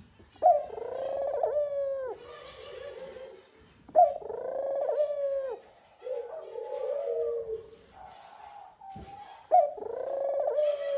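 Ringneck dove (Barbary dove) giving its nest call to its mate: three long rolling coos, each starting with a sharp rising note, about every four to five seconds. Softer, shorter coos fill the gaps between them.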